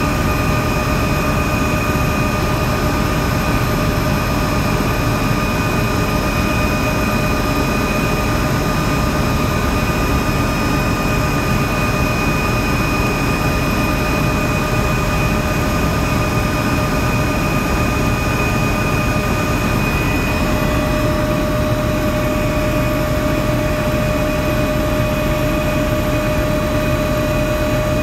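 Helicopter in flight: loud, steady engine and rotor noise with a high whine over it. The whine shifts slightly in pitch about twenty seconds in.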